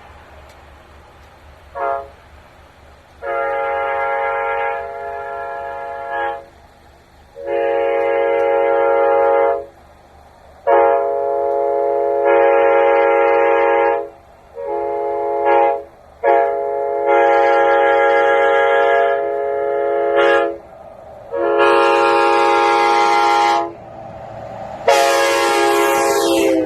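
Nathan K5HA five-chime train air horn sounding a loud chord in a string of about ten blasts: short toots mixed with long blasts held two to three seconds. A high hiss joins the last two blasts.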